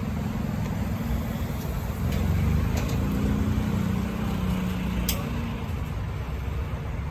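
Cadillac Escalade-V's supercharged 6.2-litre V8 idling steadily through a straight-piped exhaust, low-pitched, with a slight swell about two seconds in. A sharp click about five seconds in.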